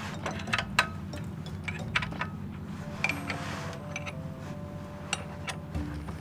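Sharp metallic clinks and knocks, several in quick succession, like hand tools against metal parts, over quiet background music with a simple melody in the second half.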